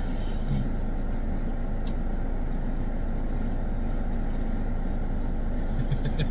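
Steady low rumble inside a parked car's cabin: the engine idling with the heater fan blowing on full.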